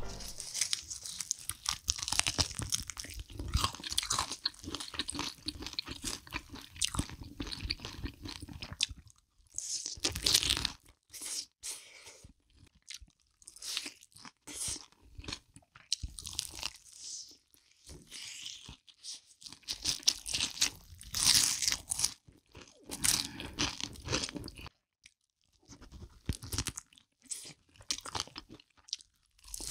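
Close-miked biting and chewing of sauce-coated fried chicken drumsticks: irregular crunches, mouthful after mouthful, with short pauses between bites.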